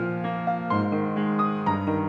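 Solo grand piano playing a slow, gentle piece, with new notes struck about every half second over sustained chords.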